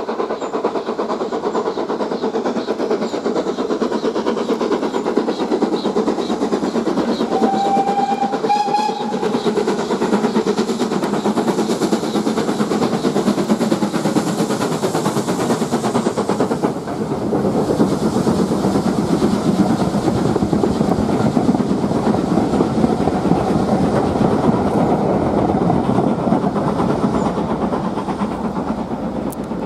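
BR Standard Class 4 2-6-4 tank locomotive 80078 hauling a train of coaches past at speed, with a short steam-whistle blast about seven seconds in. The sound of the train eases a little near the end as it draws away.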